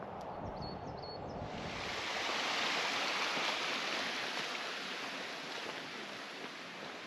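Rushing water in a canal: a steady hiss that swells about a second and a half in and then slowly fades. Wind buffets the microphone at the start.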